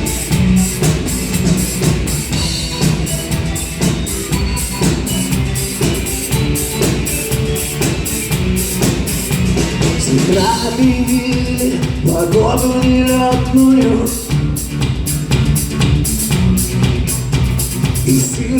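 Rock band playing a song's instrumental intro: drums keep a steady beat over bass, and a melodic lead line comes in about ten seconds in.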